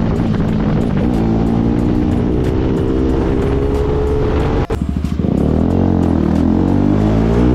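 Motorcycle engine pulling under acceleration, its note rising steadily, then dropping suddenly about four and a half seconds in as the rider shifts gear, and climbing again.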